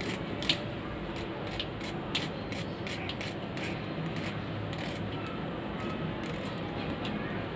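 A knife cutting a small onion held in the hand into small pieces, making a series of light, irregular clicks as the blade goes through, over a steady background noise.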